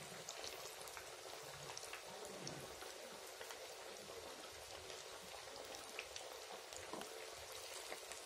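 Banana flower vadas deep-frying in hot oil: a steady sizzle scattered with fine crackling pops.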